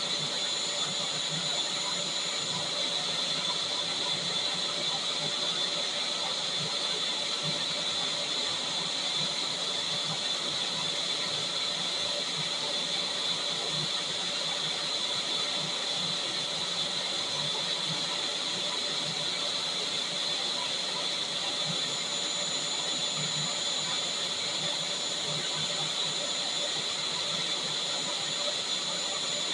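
Vacuum cleaner running steadily, a high motor whine over the rush of air, holding constant without a break.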